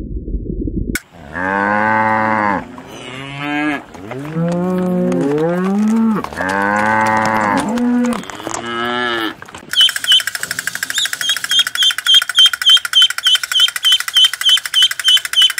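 Cattle mooing, about five long calls one after another, after a low rumble in the first second. About ten seconds in, this gives way to ducklings peeping rapidly, short high peeps about three or four a second.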